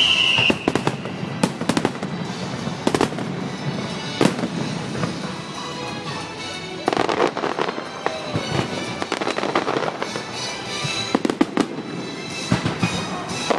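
Fireworks going off: a string of sharp bangs, with thick bursts of crackle about seven seconds in and again near the end, over music playing in the background.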